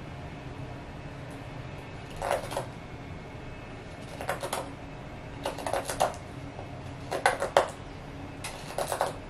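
A domestic cat licking its fur while grooming, heard as five short bouts of wet clicking a second or so apart, over a faint steady room hum.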